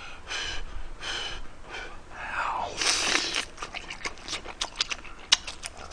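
Close-miked eating of fish cake: a few short breathy puffs, a longer slurp about two and a half seconds in, then quick wet chewing clicks.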